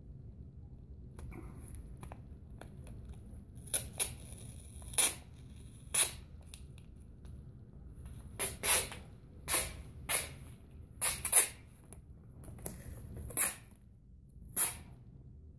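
Masking tape being pulled off its roll in short, sharp rips, about a dozen of them, starting about four seconds in.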